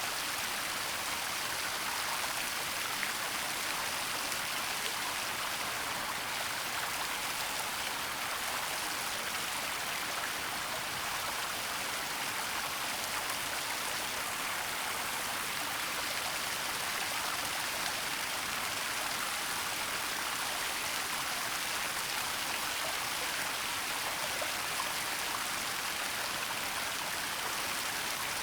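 Waterfall rushing in a forest, a steady even hiss of falling water without breaks.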